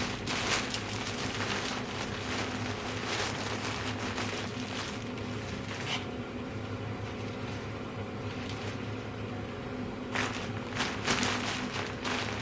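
Newspaper being twisted and crumpled by hand into paper fuses, rustling and crackling for the first half, pausing, then again near the end. Under it runs a steady hum from the CTC V40 wood boiler's draught fan.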